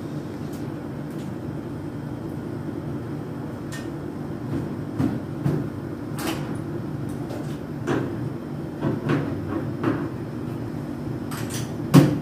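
Split air-conditioner outdoor unit running with a steady low hum, while tools and fittings at its refrigerant service valves click and knock irregularly; the loudest knock comes near the end.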